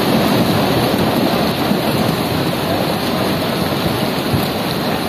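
Mudflow of wet mud and rock debris rushing steadily down and across the road: a loud, continuous rushing noise with no let-up.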